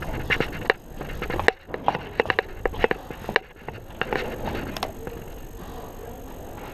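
Irregular sharp clicks and knocks over a rustling, shuffling background, with a quick cluster of several clicks about two seconds in.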